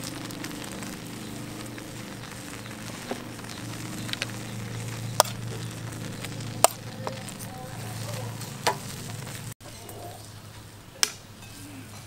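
Eggplant and minced pork sizzling over a charcoal grill, with several sharp clicks of a spoon against the plate and wire rack.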